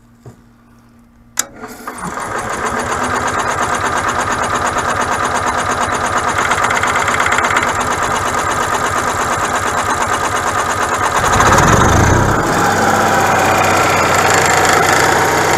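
RV generator's gasoline engine cranking with an even rhythm after a click of the start switch, then catching about eleven seconds in and running steadily. It now holds its fuel prime because an air leak in the fuel line has been tightened up.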